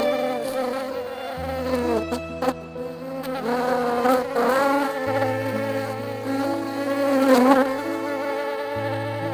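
A loud, insect-like buzzing whose pitch wavers and bends, over low sustained bass notes that change every few seconds.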